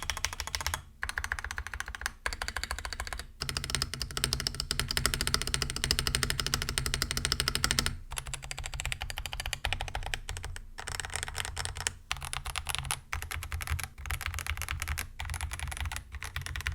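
Fast, continuous typing on a mechanical keyboard fitted with Akko Dracula linear switches (POK stem and top housing, nylon bottom housing), with a deep, thocky keystroke sound. Runs of keystrokes are broken by a few short pauses.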